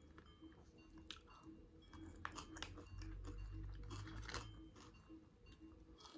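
Close-up chewing of crunchy fried chicken, with irregular crisp crackles and bites.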